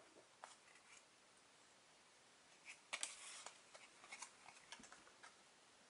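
Near silence, then from about three seconds in faint clicks and light rustling of trading cards being slid and flipped off a small stack by hand.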